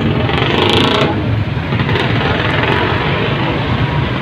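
Busy street noise: a steady low rumble of motorcycle engines with the hubbub of a crowd, and a louder rushing burst lasting about half a second, close to the start.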